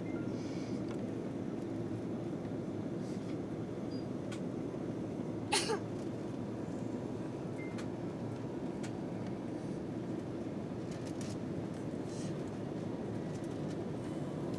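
Steady cabin noise of an Airbus A330 airliner in flight, an even low rush of engines and airflow. One short sharp click stands out about five and a half seconds in.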